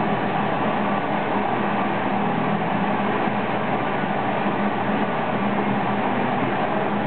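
Crossflow membrane filter running a caustic clean: the steady hum and even rushing noise of its pump circulating the cleaning solution, with no change in pitch or level.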